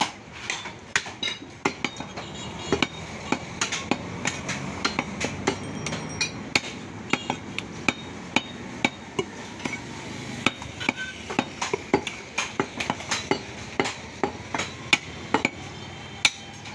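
Meat cleavers chopping beef on wooden log chopping blocks: sharp, irregular chops about two to three a second, over a steady background hubbub.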